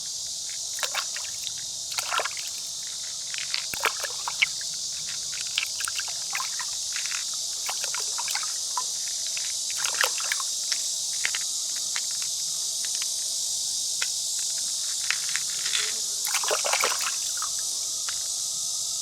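Steady high-pitched chorus of insects, with irregular small clicks and taps over it, clustering about two, four, ten and sixteen seconds in.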